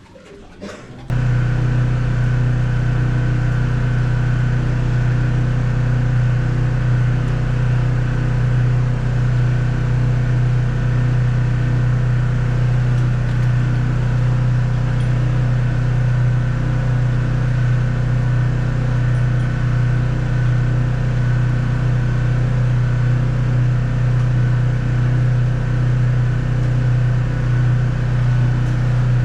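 A steady, loud, low mechanical hum like a motor running, starting abruptly about a second in and holding an even pitch and level.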